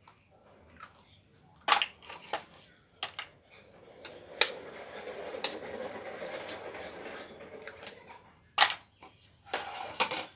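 Free-range chicken eggs being cracked against a bowl: a few sharp taps spread through, with a steadier rustling, scraping noise for about four seconds in the middle.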